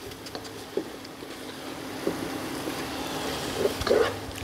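Chili paste sizzling and spluttering as it fries in oil in a pot, stirred with a wooden spatula, over a steady low hum; the sizzle grows louder about halfway through.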